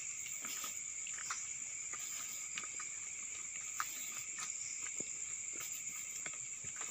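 Crickets chirring steadily, a continuous high-pitched two-tone drone, with faint scattered clicks and knocks.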